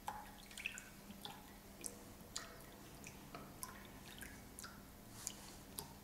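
Green tea trickling from a clay kyusu teapot into two porcelain cups, poured back and forth between them so the strength and amount come out even. Faint, with scattered small drips and splashes, several a second.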